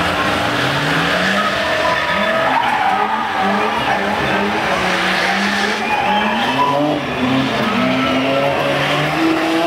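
Drift car engines revving up and down over and over while the cars spin their rear tyres in smoky burnouts and donuts, with a steady hiss of tyre noise and skidding under the engine note.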